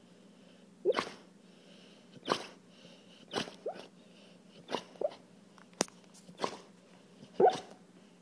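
Boxer dog dreaming in its sleep, letting out a series of short huffing sounds, about one a second, several of them starting with a brief rising squeak.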